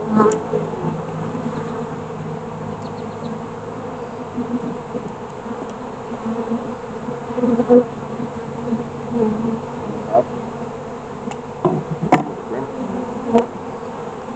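Honeybees buzzing steadily around an open hive, with a few sharp knocks, most of them near the end.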